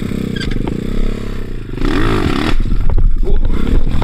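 Two-stroke KEWS enduro motorcycle engine running under varying throttle, with a quick rev that rises and falls about halfway through and gets louder towards the end.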